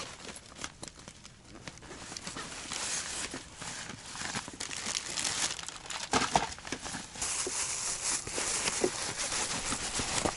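Fabric and plastic bags rustling and crinkling as hands rummage through a gear bag, with a few light knocks of items against each other.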